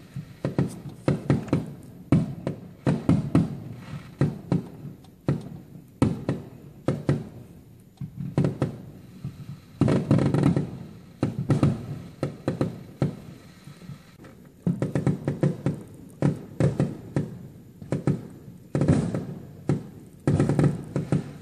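Consumer aerial fireworks going off: a rapid, irregular string of sharp bangs and crackles from bursting shells, with denser volleys about ten seconds in, around fifteen seconds in, and near the end.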